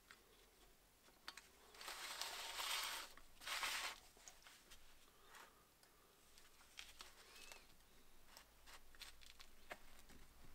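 Faint handling noises of drum brake shoes, springs and pliers: a scratchy noise lasting about a second starting two seconds in, a shorter one just after, then scattered light metallic clicks.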